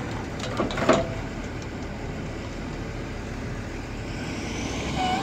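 Aljon 580 car crusher's engine and hydraulics running steadily, with a few sharp metal clanks about a second in as its grapple handles a scrapped car.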